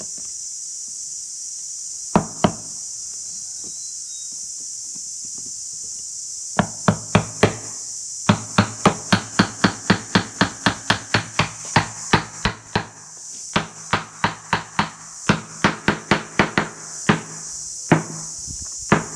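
Wooden mallet knocking end-grain pallet-wood blocks down into a wooden frame. Two knocks come about 2 s in, then, after a pause, a long run of knocks at about three a second.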